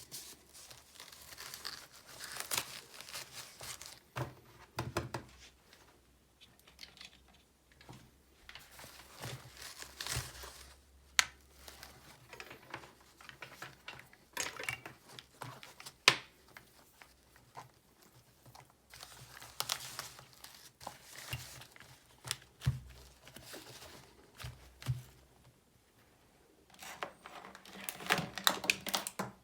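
Packaging being handled, crinkling and tearing in irregular bursts. Two sharp clicks come near the middle, and a denser burst of rustling comes near the end.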